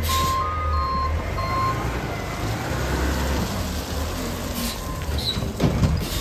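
Garbage truck backing up, its reverse alarm beeping three times in the first two seconds, about one and a half beeps a second, over the steady low rumble of its engine. A brief sharp noise comes near the end.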